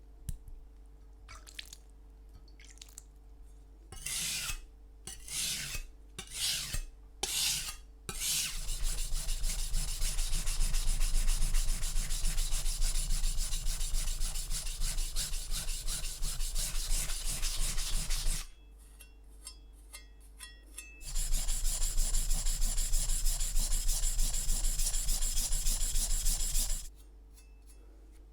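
Steel knife blade scraped across a sharpening stone: a few separate strokes at first, then two long runs of quick, even back-and-forth strokes with a short pause between them.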